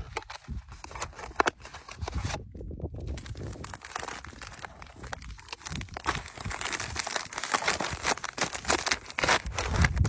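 Crinkling and rustling of MRE packaging handled close up: the entree pouch and the green flameless ration heater bag, an irregular run of crackles with a short pause about two and a half seconds in.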